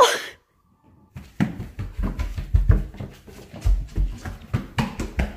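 A short kitten's meow right at the start, then a person's footsteps walking across the floor: soft thuds and knocks, about three a second.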